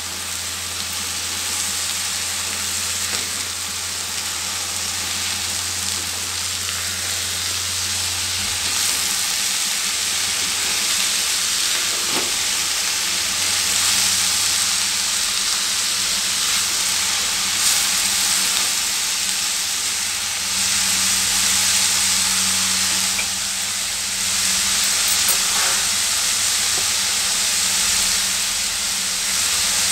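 Freshly washed ponnaganti greens (dwarf copperleaf) sizzling in hot oil in a kadai while a spatula stirs them. The hiss is steady and swells louder several times in the second half.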